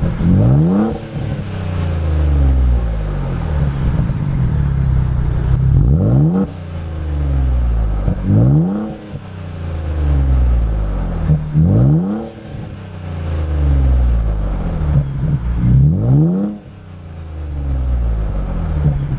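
Ford Bronco Raptor's 3.0 L twin-turbo V6 breathing through an AWE SwitchPath 3-inch catback exhaust with X-pipe and no resonators, revved about five times. Each rev climbs quickly in pitch and then falls back slowly toward idle.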